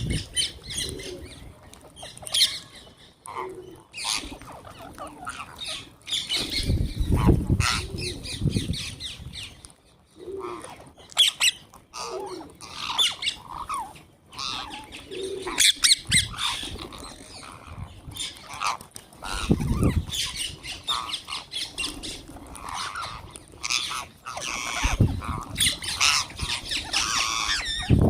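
A flock of wild green parrots squawking and chattering, many short harsh calls overlapping, with a few low thuds mixed in.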